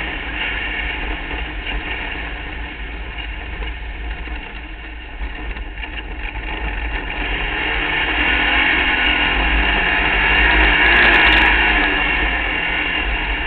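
Open-wheel race car's engine running hard at speed with wind and road rumble on the onboard microphone; it eases off about four seconds in, then builds again to its loudest near the end.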